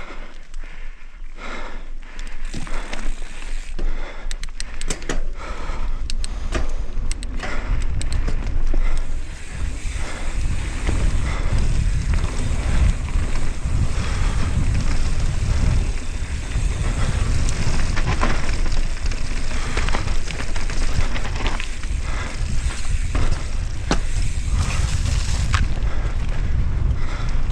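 Mountain bike ridden fast down a rough trail: tyres on rock and gravel with frequent knocks and rattles from the bike. A low wind rumble on the microphone builds after the first few seconds as speed rises.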